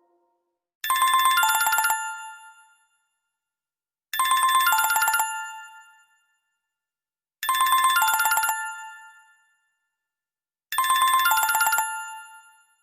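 Electronic phone ringtone: a short rapid trill that steps from a higher note down to a lower one, repeated four times about every three seconds with silence between.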